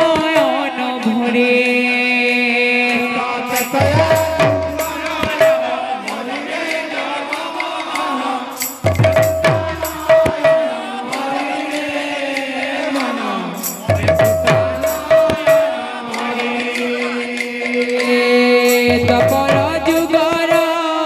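Kirtan music led by two-headed barrel drums (mridanga) played in quick, busy strokes, with a deep drum stroke about every five seconds, over steady held melody tones.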